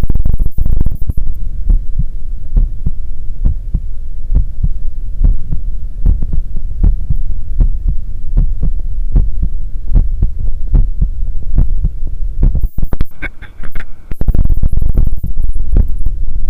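Human heartbeat heard through a stethoscope on the chest: a steady, regular run of low thumps. The beats break off briefly about 13 seconds in.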